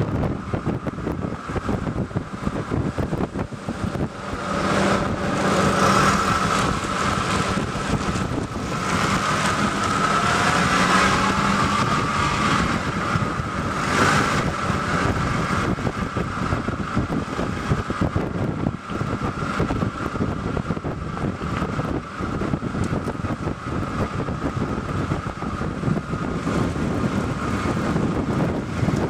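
Wind buffeting the microphone together with tyre and road noise from a 2000 Toyota Celica GT-S rolling slowly over concrete, heard from just behind the left front wheel. The noise grows louder about five seconds in, with a faint steady hum under it for several seconds.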